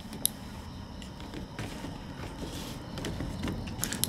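Medicine blister packs and foil packets being handled and moved on a table: a few sharp crinkles and clicks, one just after the start and a couple near the end, with faint rustling between them.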